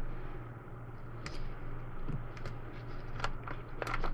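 Scattered sharp clicks and crackles of letter stickers being peeled from their sheet and the sheet being handled, more of them near the end. A steady low hum runs underneath.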